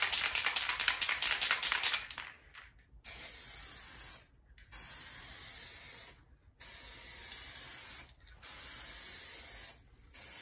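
Aerosol can of hydro-dip activator shaken hard, its contents rattling in quick, even clicks for about two seconds. It is then sprayed in five hissing bursts of a second or so each, with short pauses between them, misting the activator over the hydrographic film floating on the water.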